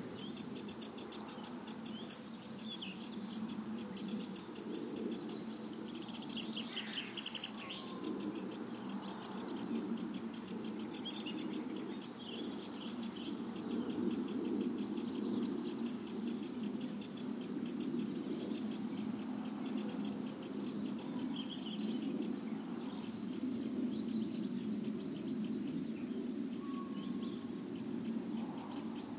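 Birds chirping and calling here and there over a steady, very fast high-pitched chirr and a low, even rushing background: a nature ambience of birdsong.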